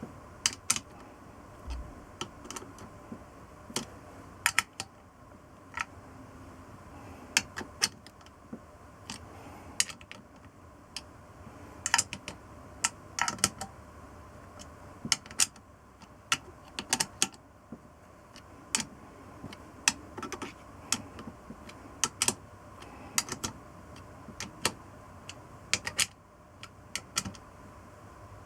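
Irregular sharp clicks and clinks, single and in small clusters, typical of hand work with tools and small metal engine parts.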